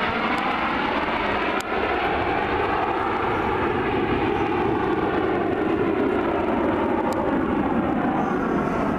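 Nine CT-114 Tutor jets flying overhead in close formation: a steady jet rumble and hiss with a slowly sweeping, phasing whoosh as they pass.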